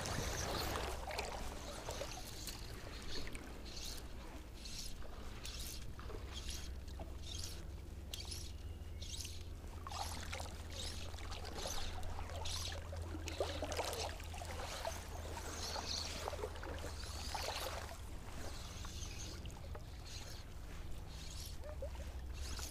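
Fly line being cast and stripped by hand, making scattered short swishes and rustles over a steady low rumble on a chest-mounted camera.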